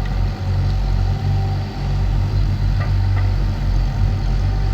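Engine of compact heavy equipment (a skid steer or mini excavator at work in mud) running steadily at a low, even hum.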